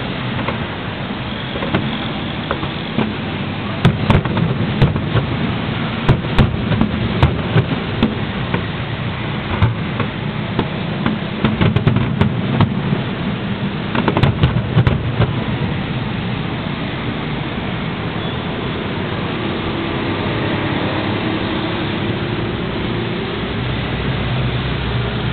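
Aerial firework shells bursting in a rapid, irregular run of sharp bangs, thickest from about four to fifteen seconds in, over a constant low rumble. The bangs stop after that, leaving the steady rumble as the last sparks fall.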